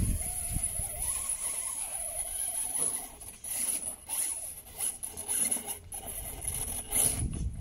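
RC rock crawler with a newly fitted brushless motor, driving and climbing over sandy dirt. Its motor and gears whine, rising and falling in pitch with the throttle, over scrabbling tyres and scattered crunches.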